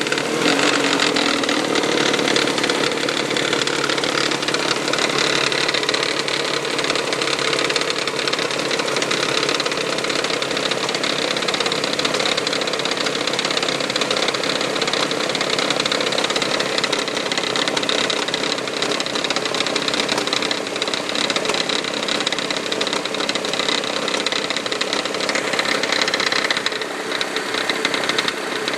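1999 Toyota Sienna's 1MZ-FE 3.0-litre V6 running steadily with a fast knocking or tapping that sounds like something hitting the valve cover.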